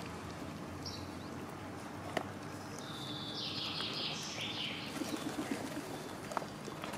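Cats chewing wet food from plastic trays, with scattered small clicks and a quick run of ticks near the end. A small bird twitters in a short high burst around the middle, with a single chirp earlier.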